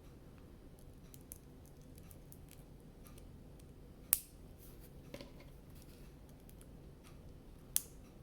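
Small plastic minifigure parts being handled and pried apart, with faint ticks throughout and two sharp clicks, one about four seconds in and one near the end.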